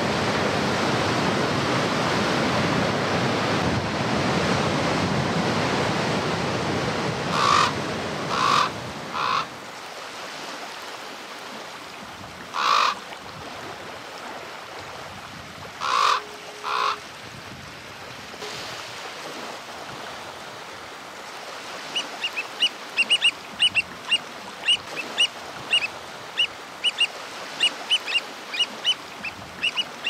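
Heavy surf breaking, a steady rushing noise for the first ten seconds or so. Then a common raven croaks several times, singly and in pairs, and in the last third black oystercatchers give loud, high piping whistles in a quick, uneven series.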